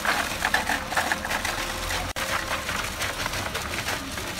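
Construction machinery running steadily with a fast, rattling motor sound, as at a concrete pour. It cuts out for an instant about halfway through.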